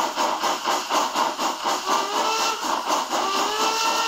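Steam locomotive running with fast, even chuffing, about six beats a second. A short tone with overtones sounds twice over it, about two seconds in and again from about three seconds in.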